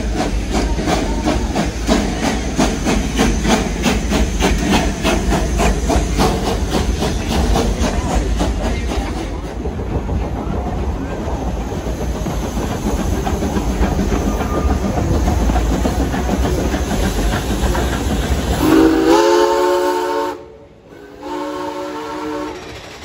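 Steam locomotive running with steady exhaust chuffs, about three a second, then the train rolling on. Near the end its Bently four-chime steam whistle sounds two blasts, the first the louder.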